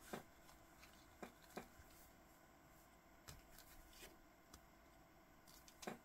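Faint handling noise: a few soft clicks and rustles as a sailcloth watch strap and its metal deployant clasp are squeezed and worked together by hand.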